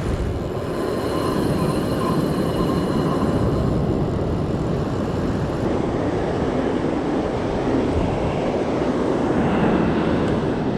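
Steady wind rushing on the microphone over the wash of surf.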